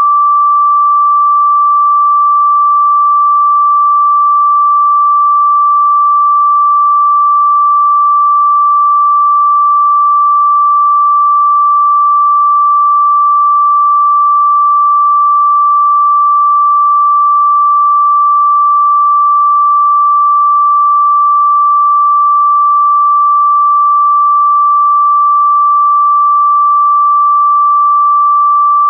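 A single pure electronic sine tone, high-pitched and held perfectly steady, with no beat, pulse or change in pitch or loudness. It is played as a chakra-activation meditation tone.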